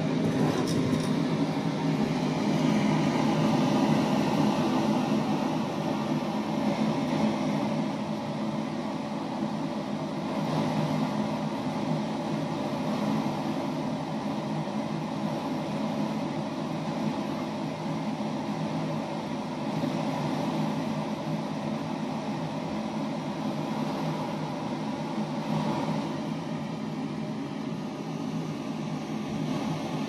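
Steady hum and whir of an electric fan or air-handling unit, holding level with no breaks.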